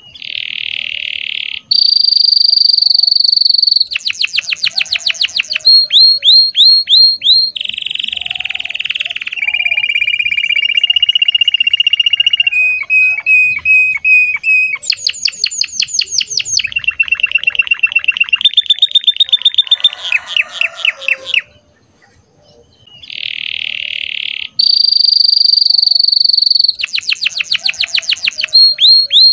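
Red canary singing a long, loud song of rolling trills, buzzy held notes and fast runs of repeated down-slurred whistles, changing phrase every second or two. The song breaks off for about a second and a half near two-thirds through, then starts again with the same opening phrases.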